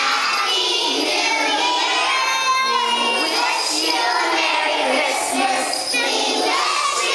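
A chorus of small children singing a song together, many young voices at once.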